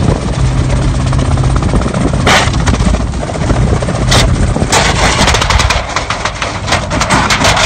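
Wind and engine noise with the gyrocopter rotor spinning as the Reliant Robin is towed, then a bit under five seconds in a rapid, irregular clatter of cracks and knocks begins as the car tips over and crashes.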